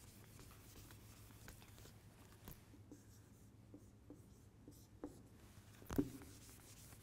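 Faint rubbing and tapping of a whiteboard eraser and marker on a whiteboard as drawings are wiped off and letters written, with one louder knock about six seconds in.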